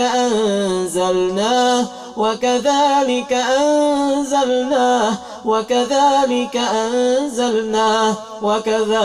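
A man's voice chanting Quranic ruqyah recitation in long, drawn-out melodic phrases, holding notes and gliding between pitches with only brief breaths.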